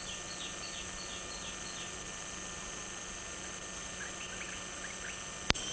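Rainforest ambience: a steady hiss with a quick run of short, falling high-pitched chirps, about three a second, in the first two seconds, and a few fainter chirps later. A sharp click comes near the end.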